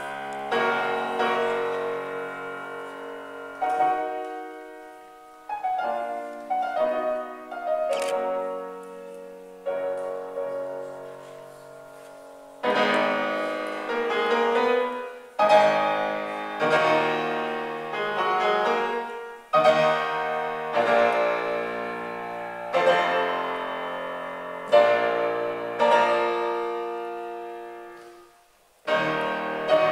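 Grand piano playing a solo classical introduction: chords and runs that strike and die away, in phrases broken by short pauses.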